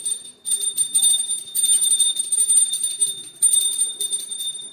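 Brass puja hand bell rung rapidly and continuously, a bright high ring from fast strokes in several spells with short pauses between, stopping at the end.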